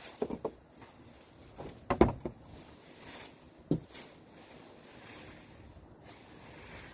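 Handling noises in a chicken house during a clean-out: three sharp knocks or bumps, the loudest about two seconds in, over light rustling.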